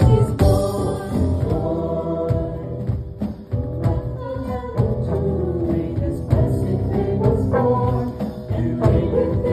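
Music with singing: several voices over instruments with a steady beat.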